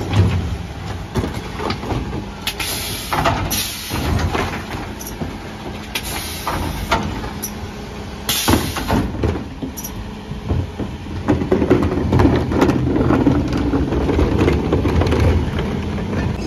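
Mercedes Econic refuse truck running, with knocks and clanks and several short hisses of air in the first half. A rougher, louder mechanical buzz comes in about two-thirds of the way through.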